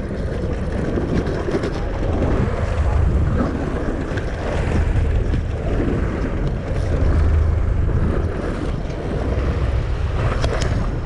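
Wind rumbling on the microphone over open sea from a boat offshore, a steady, uneven noise with sea noise underneath, and a few faint clicks near the end.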